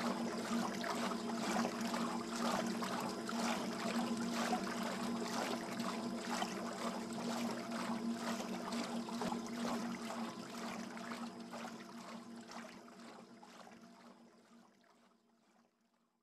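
Water splashing and churning in regular surges over a steady hum. It fades out over the last several seconds.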